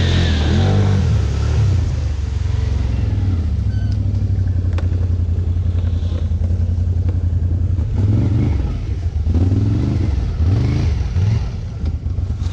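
ATV engine coming off the throttle, then running steadily. About eight seconds in, it is revved in three short blips.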